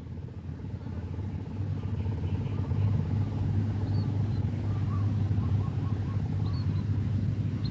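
Outdoor ambience: a steady low rumble that swells in over the first couple of seconds, with faint, brief bird chirps scattered through the second half.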